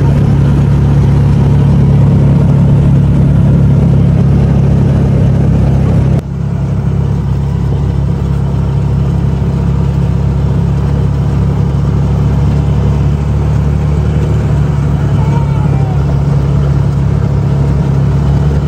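Vehicle engine running steadily with a low hum, as heard while riding along; about six seconds in the sound cuts and carries on slightly quieter.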